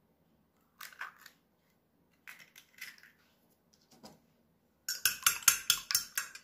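A few light taps and clicks as the eggshell is pulled apart over the plate, then, about five seconds in, a fork beating two raw eggs in a ceramic plate: fast clinking strokes of the fork against the plate, about six a second.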